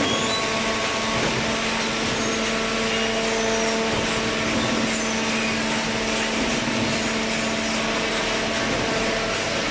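Hydraulic baler's electric motor and hydraulic pump running steadily: a constant hum with a whine over a dense machine noise.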